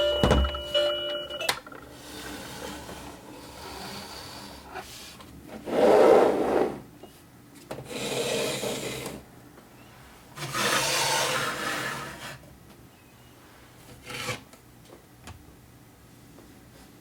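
A short electronic jingle of stepped tones ends about a second and a half in. After it come several separate rubbing, scraping sounds, the loudest about six seconds in, and a single click near the end.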